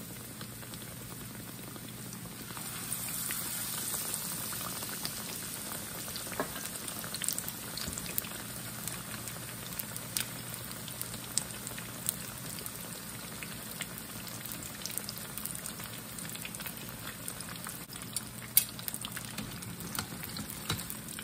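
Beer-battered tilapia fillets frying in shallow hot oil in a skillet: a steady sizzle with scattered crackling pops. It grows louder about three seconds in, as a second fillet goes into the oil.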